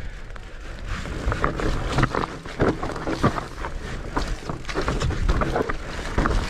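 Mountain bike rolling fast down a rough, muddy dirt single-track: tyre noise and a steady rumble of wind on the microphone, broken by many irregular knocks and rattles as the bike hits bumps.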